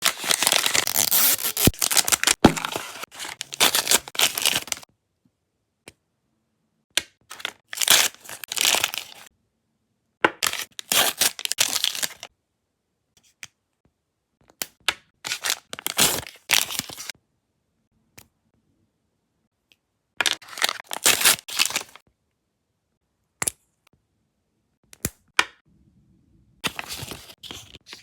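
Plastic packaging of Mini Brands toys being torn open and crinkled by hand, in bursts of crackling a few seconds long with silent pauses between.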